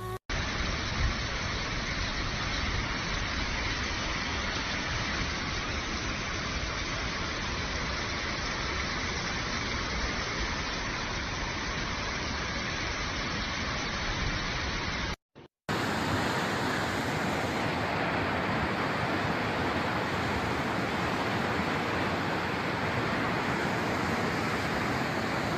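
Steady rushing noise of water from the flooding, with no distinct events in it. It drops out for a moment about fifteen seconds in, then carries on just as before.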